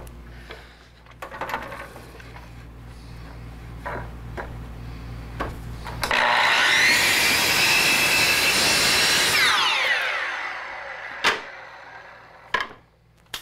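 Milwaukee miter saw switched on about six seconds in, its motor whining up to speed as the blade cuts through a wooden board, then spinning down with a falling whine after the trigger is released. Two sharp knocks of wood being handled come near the end.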